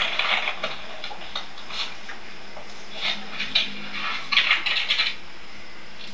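Light scraping and clinking of kitchen utensils and paper from a cake-roll recipe video, heard through a television's speaker over a steady hiss. It comes in short scratchy bursts, the longest from about four to five seconds in.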